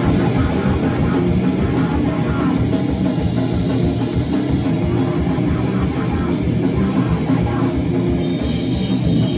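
Rock band playing live, loud and continuous, with distorted guitar and a drum kit in a heavy, metal-like style.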